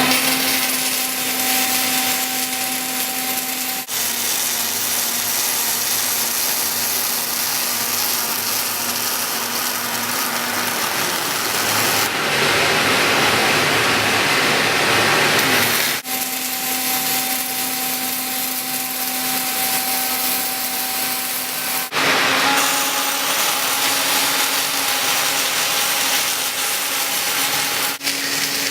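A welding robot's arc running steadily with a hissing, crackling noise and a machine hum, in several stretches broken by abrupt cuts.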